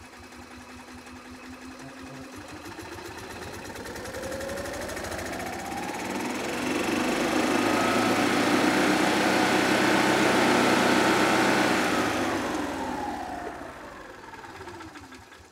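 Kawasaki FE290 single-cylinder engine of a Club Car DS gas golf cart revving up in neutral, its pitch climbing over several seconds as the drive clutch and belt spin up. It holds at high revs for a few seconds, then winds down toward the end.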